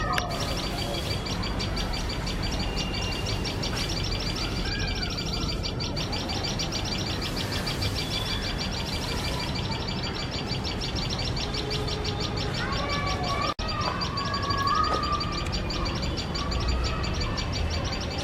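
Tailorbirds giving loud, shrill alarm calls in a fast, even, unbroken series: the pair's alarm at a cat sitting close to their nest. Other lower bird calls break in now and then, most strongly about two-thirds of the way through.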